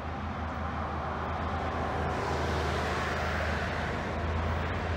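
A car driving past on the road, its tyre and engine noise swelling to a peak about three and a half seconds in, over a steady low rumble.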